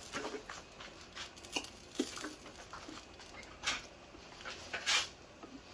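Light kitchen handling noises at the stove: scattered soft clicks and taps, with two short hissing sounds about a second apart in the second half.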